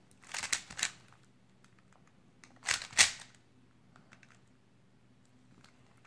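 Plastic 3x3 speedcube being turned by hand: two quick bursts of clicking and clacking layer turns, about half a second in and about three seconds in, the second ending in the loudest snap.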